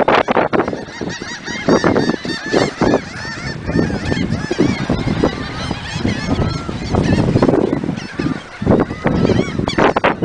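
A flock of seabirds calling over one another: many short, harsh calls in quick succession, some loud and close.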